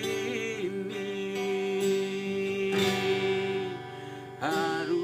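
Song with acoustic guitar accompaniment: a singer holds one long note, then starts a new phrase near the end.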